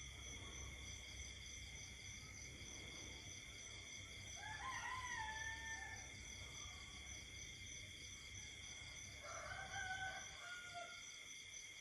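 Night chorus of insects, a steady high trilling with a faster pulsing layer above it. Two drawn-out pitched calls cut across it about five seconds apart, each lasting about a second and a half, rising at the start and then held.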